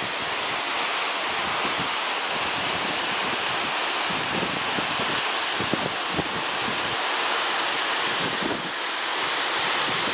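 Tall mountain waterfall, heard close to its foot as its water falls onto rock and into the plunge pool: a loud, steady, hissing rush.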